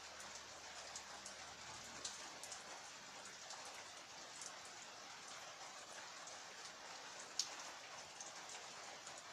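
Steady rain falling, with scattered individual drops ticking throughout and one sharper drop hit about seven seconds in.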